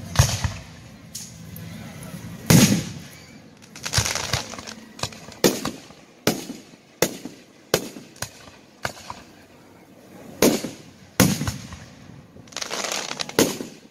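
Aerial firework shells bursting: about a dozen sharp bangs at uneven intervals, a few with a longer tail after the bang.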